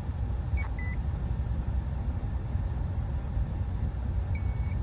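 Steady low rumble, with a click and a short high beep just under a second in, and a clear electronic beep near the end.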